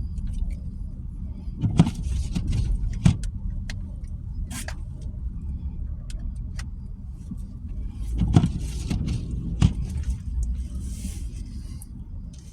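Car driving slowly, heard from inside the cabin: a steady low road and engine rumble, with several sharp knocks and bumps scattered through, the strongest about two seconds in and again near eight and a half seconds.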